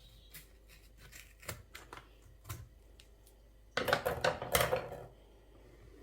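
Kitchen handling noise: a few light clicks and taps, then about a second of louder rustling, crinkling noise about two-thirds of the way in.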